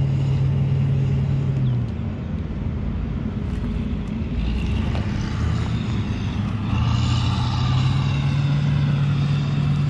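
DJI Matrice 210 quadcopter spinning up its rotors and lifting off, a wavering whir building from about halfway through and settling into a steady low hover hum. A steady low hum fades out about two seconds in.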